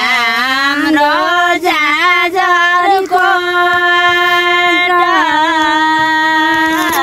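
A dog howling loudly: a few short wavering notes in the first three seconds, then two long held notes, with no words.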